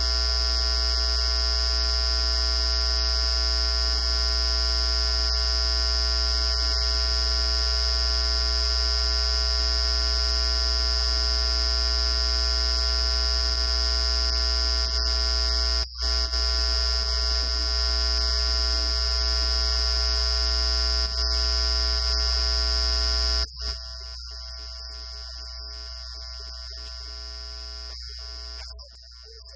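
Loud, steady electrical buzz over a low hum. It breaks off briefly about 16 seconds in, then drops to a much quieter hum about 23 seconds in.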